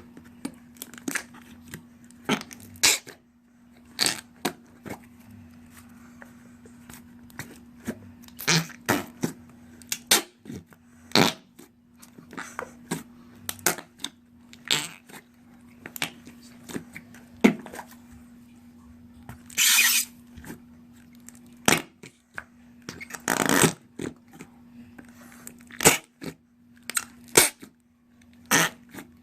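Homemade slime being squeezed and pressed, making irregular wet squelches and fart-like pops, with two longer drawn-out squelches about two-thirds of the way through. A steady low hum runs underneath.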